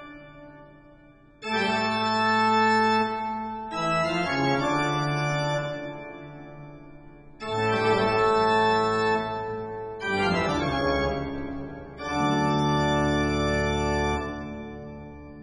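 Organ music: a slow run of held chords, five struck in turn, each starting sharply and fading away before the next.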